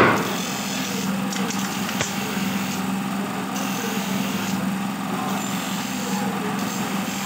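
A small engine runs steadily with an even, low hum, with a single faint click about two seconds in.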